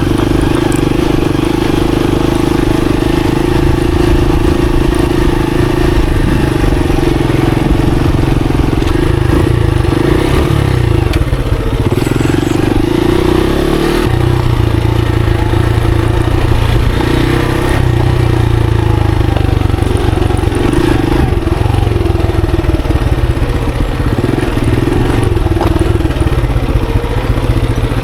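Monarch Axis 125 motorcycle engine running steadily while riding, its pitch shifting now and then with the throttle.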